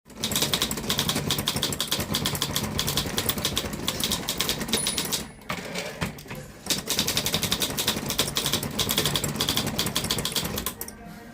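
Godrej Prima manual typewriter being typed on, rapid keystrokes clacking in two long runs with a pause of about a second and a half a little past the middle.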